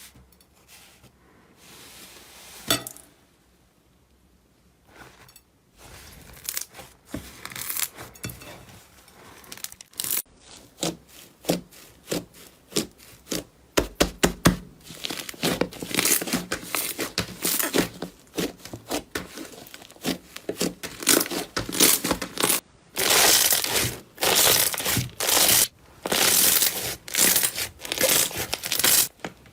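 Slime being squished and pressed by hand, giving runs of crackles and pops. Sparse and faint at first, then dense and loud from about halfway on.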